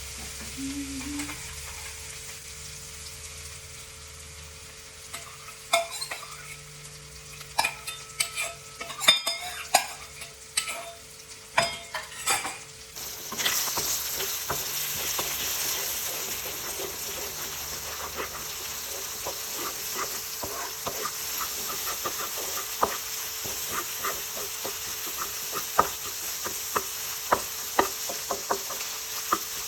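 Food frying in a pan while it is stirred with a spatula, which clacks and scrapes against the pan. About halfway through the sizzling suddenly grows much louder and stays loud, with more spatula clicks over it.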